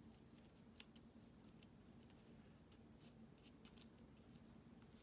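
Near silence: faint rustling and small ticks of fingers handling paper and loose yarn fibers, with one slightly louder click about a second in, over a low steady hum.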